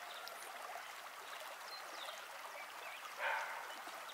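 Forest ambience: a steady, even hiss with a few faint bird chirps over it, and a short louder rasping noise about three seconds in.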